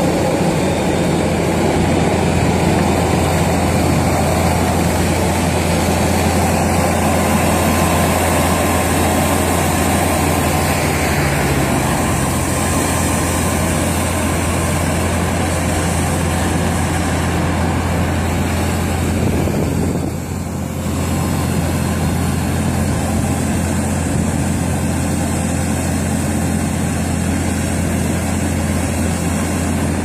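Skid steer loader's engine running steadily, with a brief dip in level about two-thirds of the way through.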